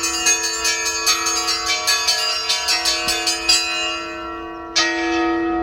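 Russian Orthodox church bells ringing: a rapid run of small bells struck several times a second over a steady hum of larger bells, breaking off about three and a half seconds in. Near the end a single loud strike rings out and hangs on.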